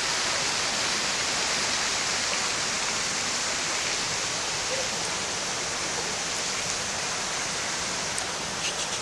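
Steady, even rushing hiss, with a few faint clicks near the end.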